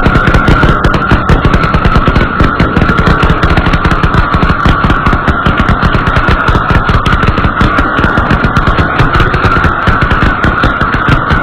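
Repeater firework cake firing a rapid, continuous barrage of shots over a steady high tone.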